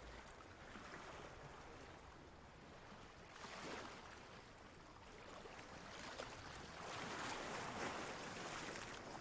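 Ocean waves washing in: a steady wash of water that swells twice, briefly about three and a half seconds in and longer from about seven seconds.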